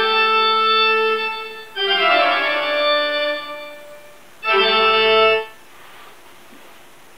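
Music played from computer speakers, started remotely from the Bluetooth keyboard: three long held chords with short gaps between them, the second fading out slowly.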